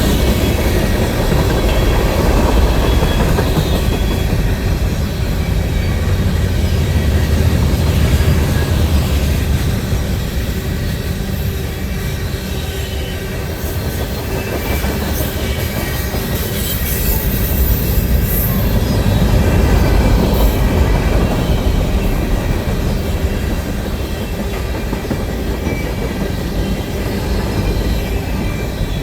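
Long freight train's cars rolling past with a steady rumble and wheel clatter on the rails. Thin, high-pitched wheel squeal comes and goes around the middle.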